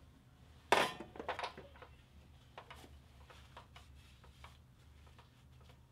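Metal clatter from the valve cover and metal drip tray of a Briggs & Stratton OHV engine being picked up: one loud clank about a second in, then a few lighter knocks and small ticks.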